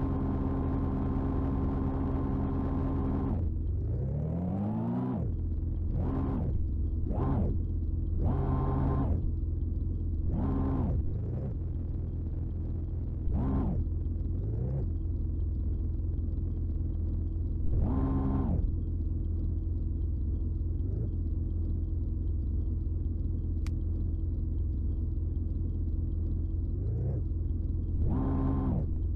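A heavy-equipment engine sound: a steady low idling drone, revved up and back down in a series of short swells.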